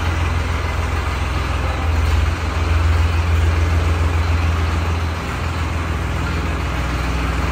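Massey Ferguson 8055 tractor's diesel engine running steadily. Its note picks up for a couple of seconds about two and a half seconds in, then eases back to a lower, even run.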